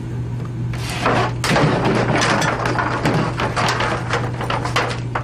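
A rapid, irregular clatter of knocks and thumps that starts about a second in and runs for about four seconds, over a steady low hum.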